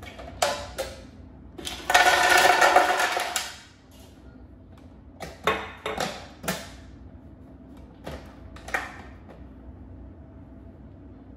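Ice cubes poured from a glass into a plastic blender jar, clattering for about a second and a half. Before and after come several sharp knocks and clicks as the jar and its lid are handled and set on the blender base.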